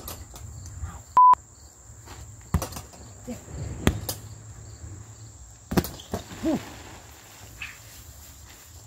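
Fists hitting an Everlast heavy punching bag, a few separate punches landing irregularly, with a short, loud beep tone about a second in as the loudest sound. Insects drone steadily behind.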